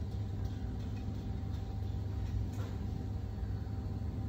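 Steady low mechanical hum of running machinery, with a faint click about two and a half seconds in.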